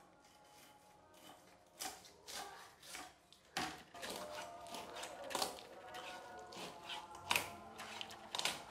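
Irregular wet clicks and cracks of a rohu fish head being worked apart by hand in a metal bowl, several a second, starting about two seconds in.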